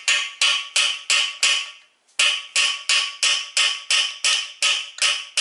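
Hammer blows on a socket held against a freeze plug, driving the plug into the engine block's core hole: a quick, even run of ringing metal-on-metal strikes, about three a second, with a brief pause just under two seconds in.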